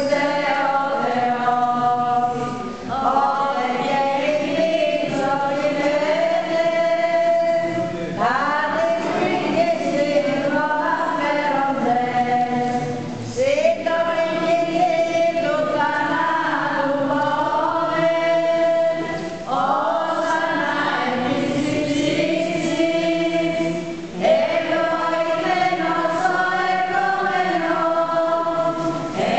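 A choir singing Byzantine-rite liturgical chant, in sustained phrases of about five seconds with short breaks between them.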